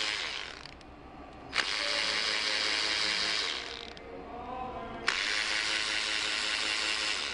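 Handheld power tool running in bursts of about two seconds, each starting sharply, spinning bolts out of the engine's pulleys and front cover.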